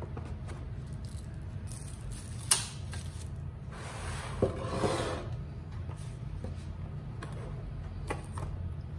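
Paperboard takeout food boxes being handled and shifted on a tabletop: a sharp tap about two and a half seconds in, a short rustling slide around the middle, and a couple of light knocks near the end, over a low steady hum.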